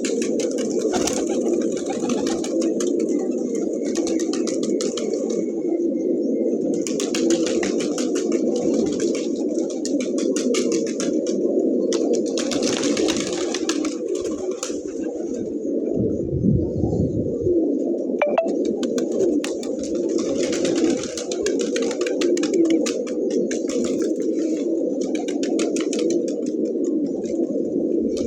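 A flock of domestic pigeons cooing continuously, many coos overlapping into a steady low murmur. Patches of scratchy rustling come and go over it.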